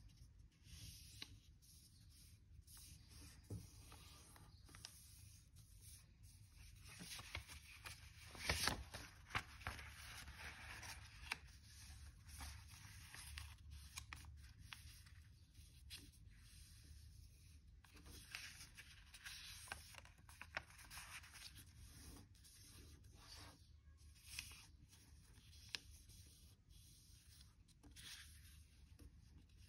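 Faint rustling and crinkling of a sheet of origami paper being folded and creased by hand, with scattered sharp crackles; the loudest crackles come about eight to nine seconds in.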